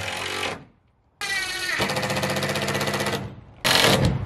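Cordless impact driver driving screws through plywood into the hull framing: a short run that stops about half a second in, then after a brief pause a run of rapid hammering about two seconds long, its pitch dropping as the screw seats, and a short loud burst near the end.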